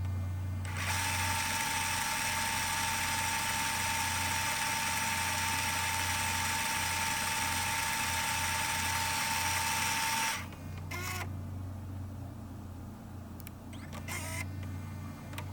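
Tape machine winding at high speed: an even hiss with a steady whine that stops suddenly after about ten seconds, followed by a few mechanical clicks and clunks of the transport, over a steady low hum.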